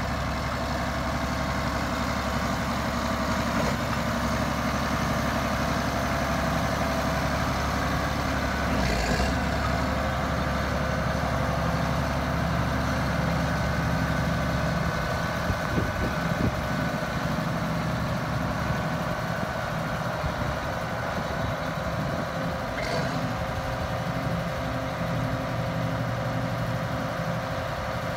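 Case 4490 four-wheel-drive tractor's six-cylinder turbo diesel engine running steadily as the tractor moves slowly across a field, its low engine note changing about halfway through.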